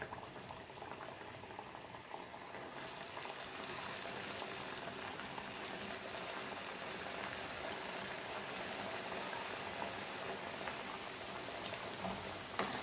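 Wheat-flour dough discs deep-frying in hot oil in an aluminium pan: a steady bubbling sizzle that gets louder about three seconds in as more discs go in. Near the end, a few light clicks of a metal slotted spoon in the pan.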